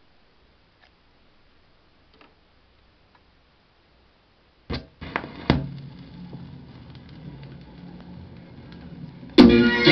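Vinyl record playing on a Sony LBT-A195 turntable: faint ticks, then a sharp click about halfway through, followed by the quiet crackle, pops and low hum of the record's lead-in groove. Near the end the song starts loudly with guitar.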